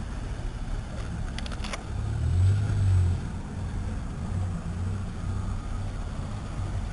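Low engine rumble of a car moving slowly close by, swelling louder about two to three seconds in, with a few faint clicks about a second and a half in.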